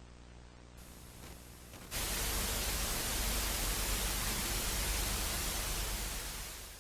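Low electrical buzzing hum, then loud television static hiss that bursts in about two seconds in and fades slightly near the end.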